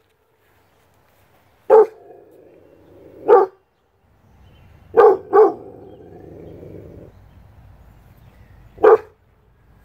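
Six-month-old Rottweiler puppy barking: five loud single barks spaced a second or more apart, with a quick double bark about halfway through.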